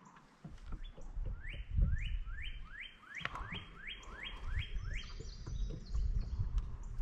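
A songbird singing a fast series of about nine rising, whistled notes, two or three a second, over a low rumble.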